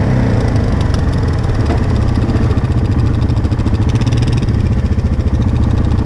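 ATV engine running at low revs while the quad rolls slowly along, a steady low pulsing engine note.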